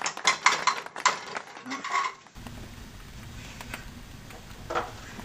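Cookware clattering on an electric stovetop: a quick run of knocks and clicks of a pot and pan being handled. This gives way about two seconds in to a steady low hum with a few faint clicks.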